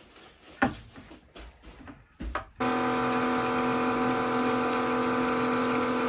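A few faint knocks as a hose is handled, then about two and a half seconds in a Milwaukee 18-volt battery-powered pump comes in suddenly and runs with a steady, even whine. It is pumping clean water through itself to flush out vinegar residue.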